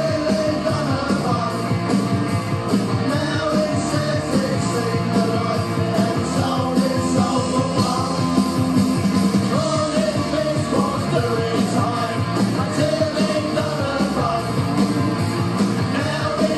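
Punk rock song with a shouted male lead vocal over electric guitars, bass and drums.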